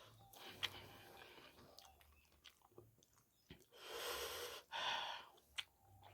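Close-miked mouth chewing a mouthful of spicy pork curry and white rice, with wet smacks and a few sharp lip clicks. About four seconds in come two loud breathy rushes of air, a longer one then a shorter one.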